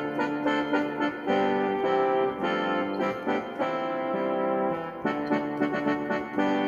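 Yamaha PSR-60 home keyboard played in a brass-band voice: held chords that change about once a second, with quicker notes between them.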